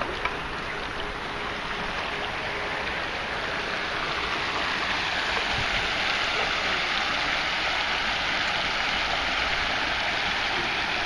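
Shallow creek water rushing and splashing over a low pile of debris, a steady hiss that grows a little louder about four seconds in.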